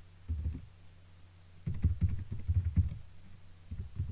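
Typing on a computer keyboard: a dull tap near the start, a quick run of keystrokes about two seconds in, and a few more taps near the end.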